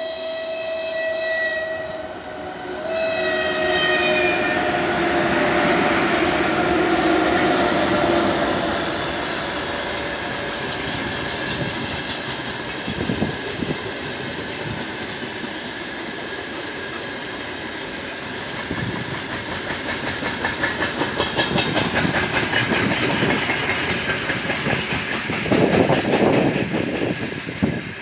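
A 2ES5K Ermak electric freight locomotive sounds its horn as a greeting, a blast then a second one about three seconds in whose pitch drops as it passes. Loaded coal wagons follow, rolling by with a steady rush and the clickety-clack of wheels over rail joints that grows louder near the end.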